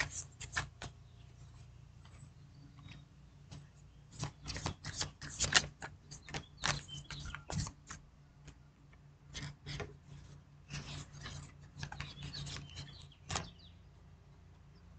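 A deck of tarot cards being shuffled by hand: irregular runs of quick card snaps and flicks, broken by short pauses.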